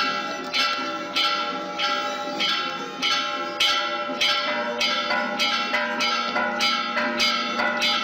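Church bells of the San Rafael church being rung, struck in a steady pattern about twice a second with the tones ringing on between strokes. About halfway through the strokes come quicker and a deeper bell joins in.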